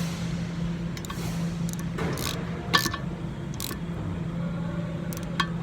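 Scattered clicks and knocks from a 12 mm wrench tightening the bolt of a replacement ABS wheel-speed sensor, about seven in all at uneven intervals, over a steady low hum.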